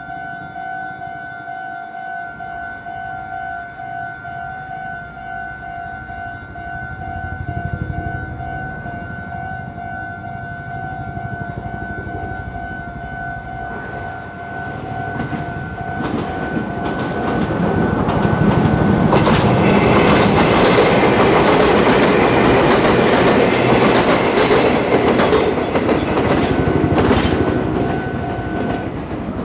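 A level crossing's warning bell rings with a steady, pulsing two-tone alarm while a Meitetsu electric train comes up and passes. The train's running noise grows in the second half and is loudest near the end. The bell stops just before the end.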